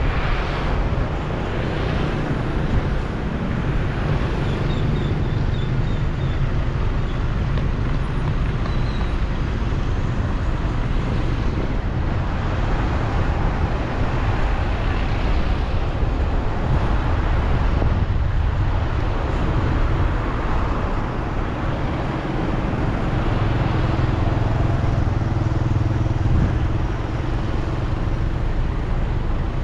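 Steady road traffic noise with a low rumble, vehicles running by continuously.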